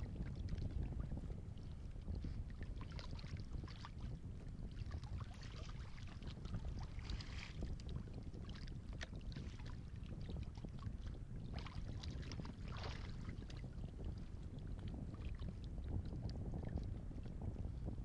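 Wind rumbling on the microphone over water lapping at the side of a kayak, with a few brief small splashes by the hull.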